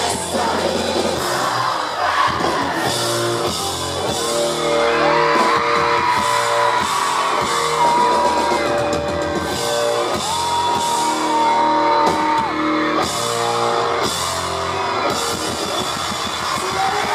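Live rock band playing in a large hall, with sung vocal lines over guitars and drums, and crowd yelling mixed in.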